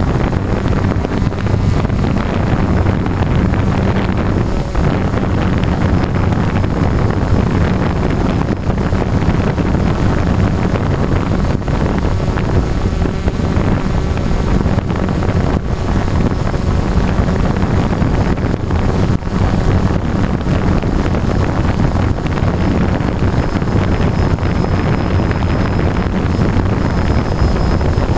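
DJI Phantom quadcopter's motors and propellers running in flight, a loud steady buzz heard through its onboard camera, with wind buffeting the microphone.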